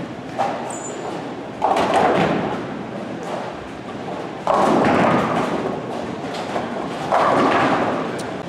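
Bowling balls crashing into tenpins four times, each a sudden clatter of pins that dies away over a second or so, the loudest about four and a half seconds in. A steady din of the bowling centre runs underneath.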